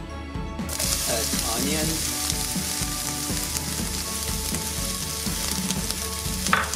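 Diced sweet onion sizzling in hot olive oil in a stainless steel frying pan. The sizzle starts suddenly under a second in, as the onion goes into the oil, then runs on as a steady hiss.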